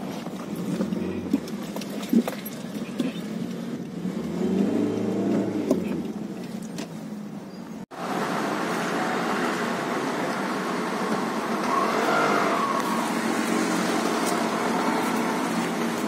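Street traffic: a vehicle engine passes in the first half, then, after a brief dropout about eight seconds in, louder and denser engine and tyre noise from nearby road vehicles.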